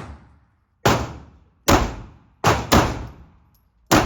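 Five 9mm handgun shots at uneven intervals, two of them in quick succession, each followed by a short echoing tail.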